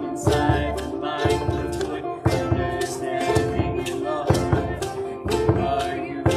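Acoustic string band music: banjo, mandolin and upright bass playing a lively tune over a steady beat from a washboard and bass drum.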